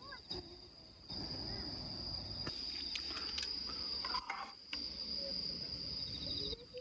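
Night insects trilling steadily at one high pitch, the trill dropping out briefly a few times. Between about two and four and a half seconds in there are a few light clicks from a spoon in a metal mess tin.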